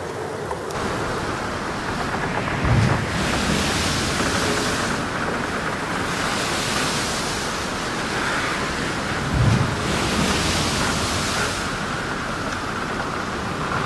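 Wind buffeting the microphone and sea water rushing past a moving boat's hull, the hiss swelling and fading with each wave. A low thump comes about three seconds in and again at about nine and a half seconds.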